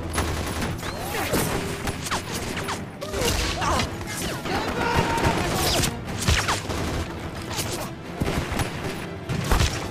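Soundtrack of a Canal+ commercial played back in a lecture hall: a chase with bursts of gunfire and sharp impacts, mixed with voices and music.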